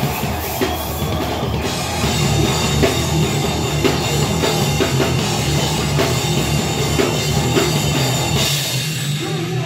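Live band playing loud heavy rock: electric guitars, bass guitar and drum kit with regular drum hits over a thick, steady low end.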